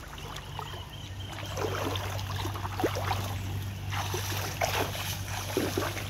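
Shallow river water sloshing and splashing irregularly around the legs of a person wading out of it, over a steady low hum.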